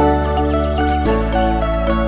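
Background music: an electronic track with sustained synth chords that change about once a second over a steady beat.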